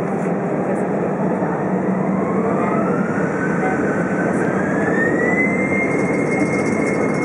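Airbus A320 jet engines heard from inside the cabin, spooling up for the takeoff roll. A steady rush and rumble carries a fan whine that rises in pitch over a few seconds and then holds steady as takeoff thrust is set.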